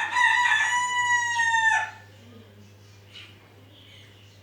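A rooster crows once, a loud call of about two seconds that holds its pitch and drops off at the end.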